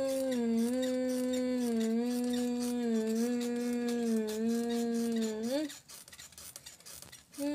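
A long drawn-out voice held on one pitch for over five seconds, dropping in small steps and ending in a short upward slide; after a brief pause it starts again near the end.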